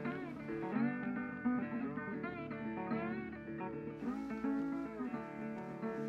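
Background music: guitar playing, with notes that slide up and down in pitch.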